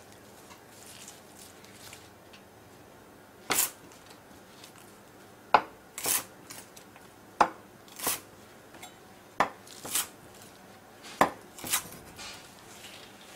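Kitchen knife cutting mitsuba stems and leaves on a wooden cutting board: slow, separate cuts, each a sharp knock of the blade on the board, starting a few seconds in and mostly coming in pairs about half a second apart.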